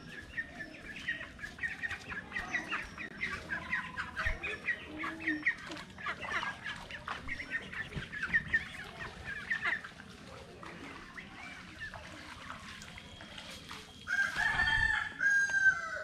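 Domestic chickens clucking in quick repeated calls, then a rooster crowing in one long call near the end.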